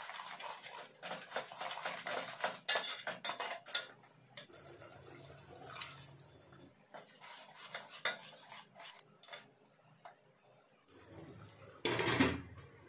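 A spoon stirring and scraping thick masala gravy in a metal pot, with quick clinks and scrapes for the first few seconds and a few more after. Near the end, water poured in from a bowl makes one short, loud splash.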